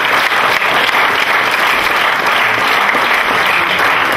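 Audience applauding: steady, dense clapping from a large seated crowd.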